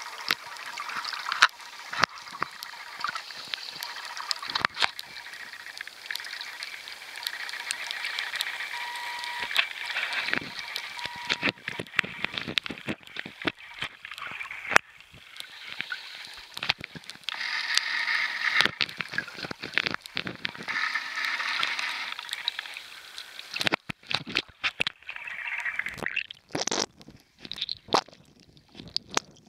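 Underwater sound picked up by a submerged camera: a muffled, steady hiss scattered with many sharp clicks and crackles, swelling louder a few times.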